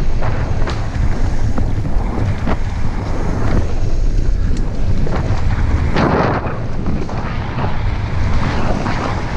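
Wind buffeting the microphone over the rumble and rattling of a mountain bike descending a rough trail, with many short knocks from bumps and a louder jolt about six seconds in.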